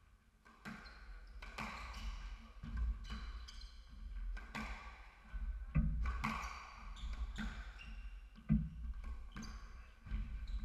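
Squash ball being struck by rackets and smacking off the court walls in a rally, a sharp knock with a short ring about every second, with shoes squeaking on the wooden court floor between the shots.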